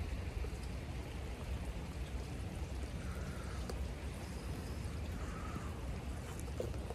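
Steady patter of falling wet snow, sounding like light rain.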